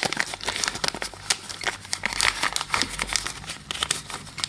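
Irregular crinkling rustles and small clicks of hands handling small electronic parts and plastic.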